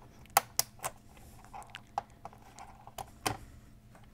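Several sharp plastic clicks and taps as a gauge needle is pried off a Chevrolet Cavalier instrument cluster with a plastic fork and set down.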